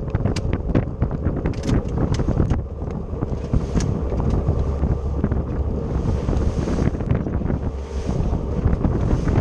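Inflatable boat running at speed over choppy water: wind buffeting the microphone over the low, steady drone of the engine. Sharp slaps and knocks come through it, thickest in the first three seconds.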